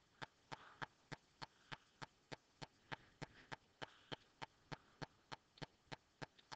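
Faint, evenly spaced ticking, about three ticks a second, with no break.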